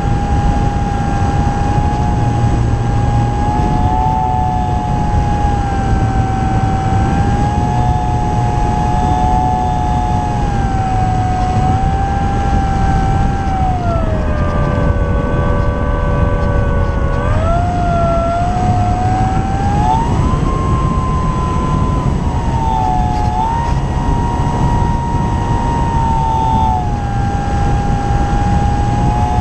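Electric motor and propeller of an E-flite Apprentice S 15e RC trainer plane whining in flight, heard from under the fuselage with wind rushing over the microphone. The pitch drops about halfway through as the motor slows, then rises again a few seconds later.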